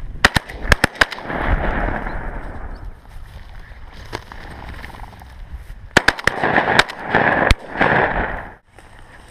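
Two bursts of sharp clicks and knocks, one near the start and one about six seconds in, each followed by a couple of seconds of rustling: a hunter handling a shotgun and moving through dry field grass.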